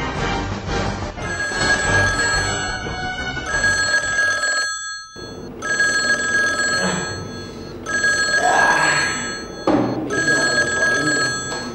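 Electronic telephone ringing in repeated rings of about two seconds each with short gaps, starting about a second in, over background music.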